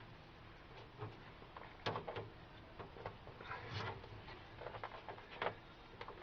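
Faint, scattered rustles and light knocks from sheets of self-adhesive sound deadening insulation being handled and pressed into place against a truck cab's roof.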